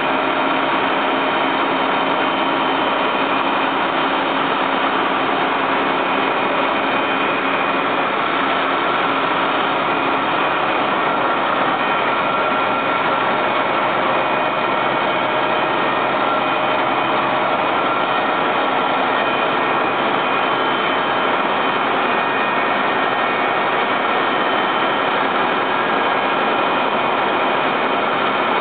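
Fire truck engines running steadily: a constant, loud mechanical drone with faint steady tones through it.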